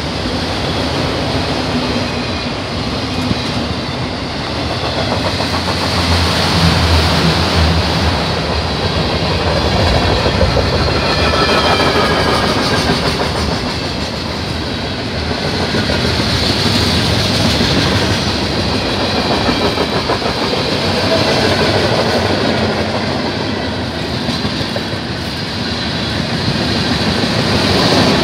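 Freight train passing close by: steel wheels rumbling and clicking over the rails as autoracks, covered hoppers and tank cars roll past, a steady loud din.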